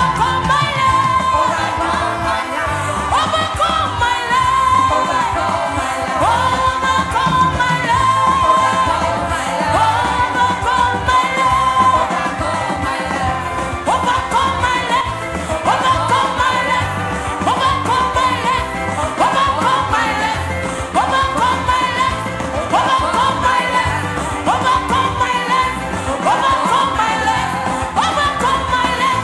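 Gospel worship music: a voice singing a melody in repeated phrases with upward slides, over continuous instrumental accompaniment.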